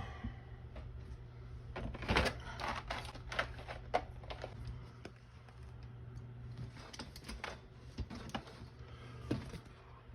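Scattered clicks, taps and rustles of parts and tools being handled on a workbench, over a low steady hum.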